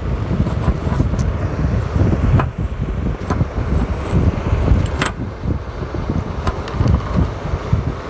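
Fan-deck motor of a Calorex pool dehumidifier spinning a 3D-printed fan blade: a steady low rumble with air rushing, and a few sharp clicks or knocks, the clearest about two and a half and five seconds in.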